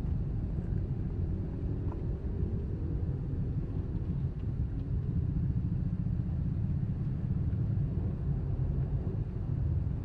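Steady low rumble of a Suzuki Ertiga's engine and tyres, heard from inside its cabin while it drives.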